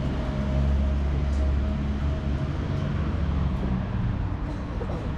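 City street traffic: a steady low engine rumble from vehicles on the road alongside, over a general hum of street noise.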